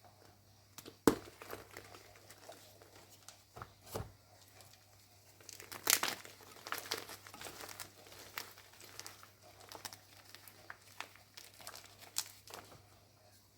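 A crunchy reformed block of gym chalk being broken and crushed: a sharp snap about a second in, a duller knock a few seconds later, then a dense run of crunching, crumbling crackles that thins out into scattered crackles.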